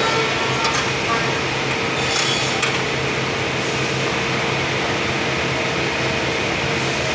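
Sawmill machinery running with a steady, dense din over a constant low hum, with a couple of faint knocks a little into the sound.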